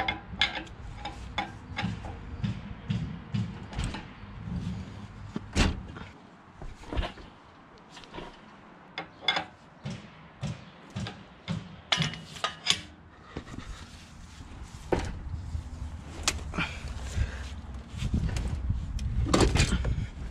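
Irregular metal clanks and knocks from a shop engine hoist and the Mk1 Volkswagen engine and transmission it holds as they are let down onto moving blankets, with a heavier, denser shuffling rumble near the end.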